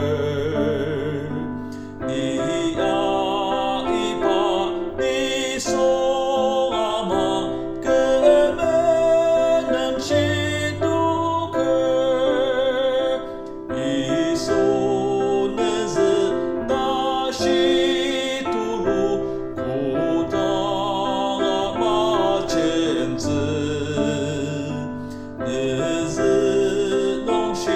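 Singing with vibrato over keyboard accompaniment, in slow sustained phrases with short breaths between them.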